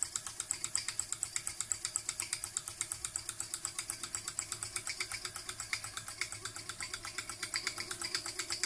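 Mamod Centurion model steam traction engine with a double-acting piston-valve cylinder, running on live steam while driving a belted Blue Thunder generator: a rapid, even chuff of about six exhaust beats a second, the steam exhaust piped up into the chimney. A faint steady hum lies underneath.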